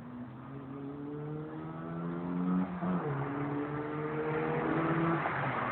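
Renault Clio Mk1 1.4-litre 8-valve four-cylinder engine accelerating: the pitch climbs, drops briefly at a gear change about three seconds in, then climbs again as it gets louder.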